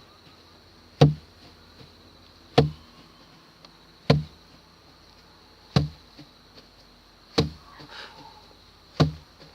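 Six heavy thuds at a steady working pace, about one every second and a half, from harvested rice being worked by hand.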